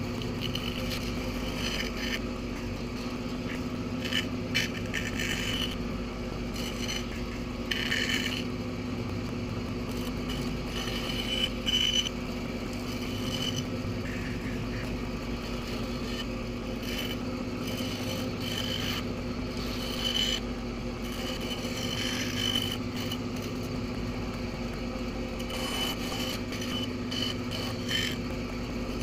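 Bandsaw running steadily with a motor hum while its blade cuts a curved piece of wood, with irregular bursts of rasping cutting noise as the wood is fed into the blade.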